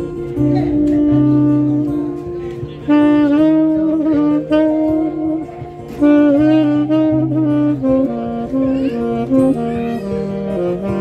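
Tenor saxophone playing a slow melody, with lower held accompaniment notes, like a backing track, changing underneath.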